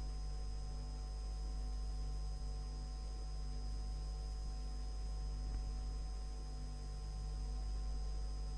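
Steady electrical hum with a faint hiss and a thin high whine: the background noise of an old recording.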